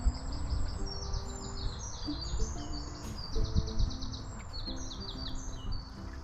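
Background music of held, changing notes, with songbirds singing rapid trills of high chirps over it and a low, uneven rumble underneath.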